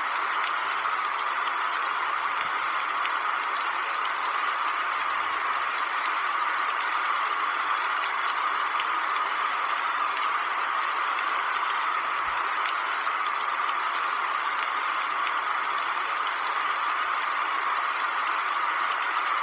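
Steady, even hiss of rain sounds, unchanging throughout, with one faint click partway through.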